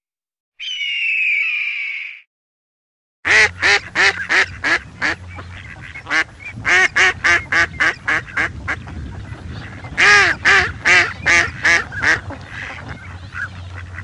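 A Steller's sea eagle gives one harsh call of about a second and a half. Then, about three seconds in, Canada geese start honking: a rapid series of short, loud honks with brief pauses between runs.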